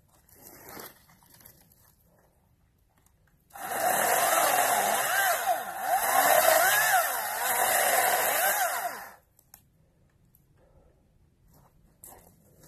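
Greenworks 40-volt DigiPro battery chainsaw running for about five seconds as it cuts pine limbs, its electric whine dipping and rising as the chain bites, then cutting off suddenly.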